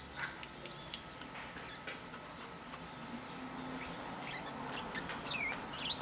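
Budgerigars chirping softly, with scattered short chirps and clicks and a quick run of chirps sliding down in pitch near the end.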